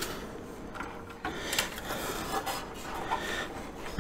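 Handling noise from a plastic scale-model car chassis being turned over by hand: light rubbing and scraping with a few small clicks and knocks, the clearest about a second and a half in.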